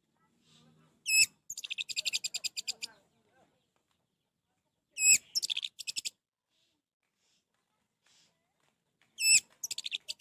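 Orange-headed thrush singing three short phrases a few seconds apart. Each phrase opens with a loud swooping note and runs straight into a rapid series of repeated notes.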